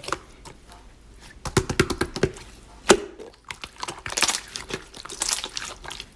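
Slime being squeezed and pressed by hand, giving sharp clicking and crackling pops in irregular clusters, with one loud snap about three seconds in.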